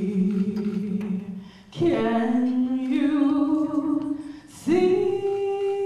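A solo voice singing slowly and unaccompanied: one long-held note, a second that steps up partway through, and from a little before the end a higher note held with a slight waver.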